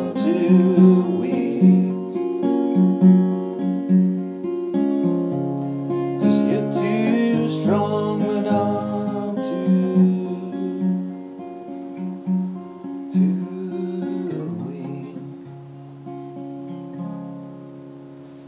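Steel-string acoustic guitar strumming chords as a song's closing outro. Over the last several seconds the strumming thins out and the sound fades as the final chord rings away.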